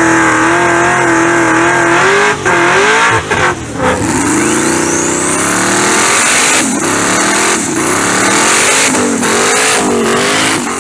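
High-performance drag cars revving at the starting line, edited together from several clips. Early on one engine is held at a steady high rev, then the throttle is blipped repeatedly, the pitch rising and falling. A high whistle rises over a couple of seconds near the middle.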